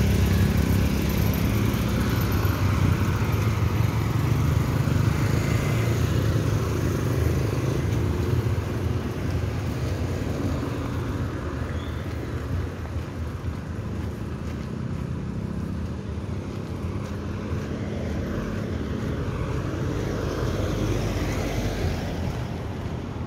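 Street traffic: motorcycle and car engines passing. A steady engine hum is loudest for the first several seconds, then eases.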